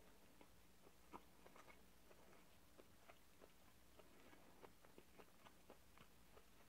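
Faint chewing, with soft, irregular mouth clicks.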